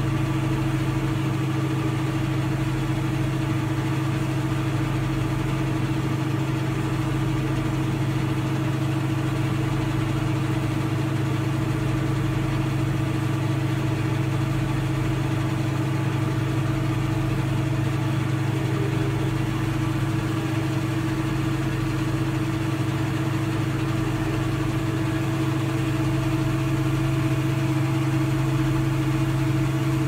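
Diesel engines of a Case IH 1660 Axial-Flow combine and the tractor beside it running at a steady, constant speed while the combine's unloading auger pours shelled corn into a grain wagon.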